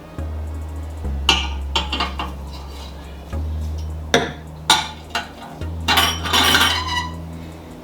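Clean crockery clinking and knocking as plates and dishes are set back into a kitchen cupboard: a run of separate clatters, then a longer cluster of rattling near the end, over a background music bassline.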